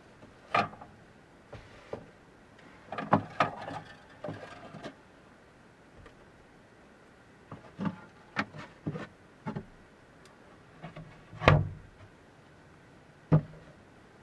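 Things being handled in a wooden storage crate: a scattered series of knocks, clunks and rustles as items are lifted out and set down and the lid is shut, the loudest knock about eleven and a half seconds in.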